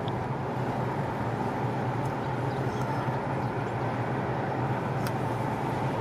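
Steady road and engine noise heard inside a moving car: an even low drone with tyre rumble, and a faint tick about five seconds in.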